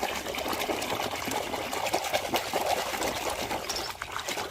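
Water pouring and trickling steadily over a muddy toy as it is rinsed clean.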